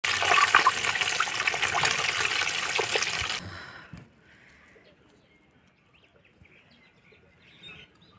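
Potato rolls deep-frying in hot oil: a loud, steady sizzle with fine crackling, which cuts off sharply about three and a half seconds in, leaving only faint quiet sounds.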